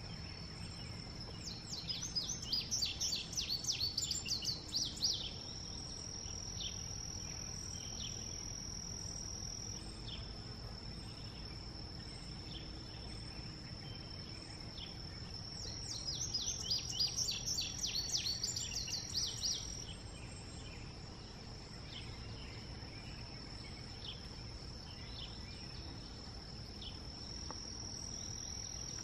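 Male indigo bunting singing twice, once near the start and again about halfway through, each song a rapid series of high notes lasting a few seconds. A steady high-pitched insect drone runs underneath.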